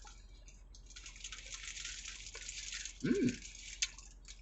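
Close-up chewing of a bacon-and-pineapple burger, wet mouth sounds, with a short closed-mouth "mmm" hum about three seconds in and a single click near the end.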